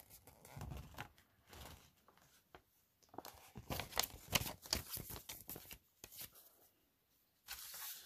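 Packaging of a card deck being handled, crinkled and torn open by hand, a run of irregular crackles that is busiest in the middle and picks up again near the end.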